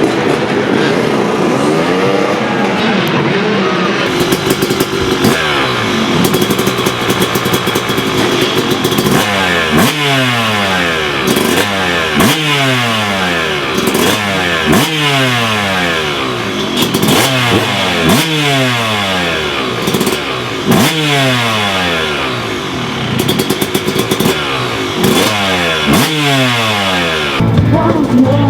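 Two-stroke motocross bike engine on the throttle, its pitch swinging up and down in a repeating cycle about every two and a half seconds as the rider works through the rhythm section.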